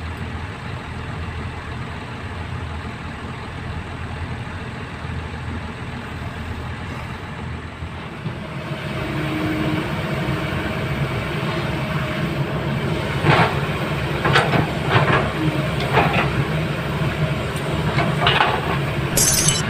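Heavy diesel earthmoving machinery running under load. The engine grows louder about halfway through, then a series of irregular metallic clanks follows, typical of steel tracks or a bucket working.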